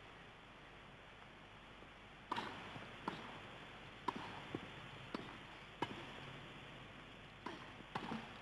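Tennis ball being struck by rackets on a grass court during a rally: a string of sharp pops that starts about two seconds in and comes roughly once a second.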